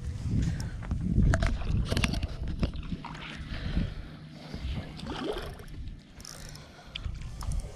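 Water splashing as a hooked fish thrashes at the surface beside the boat, over a low rumble of wind on the microphone that is loudest in the first few seconds, with scattered sharp splashes and knocks.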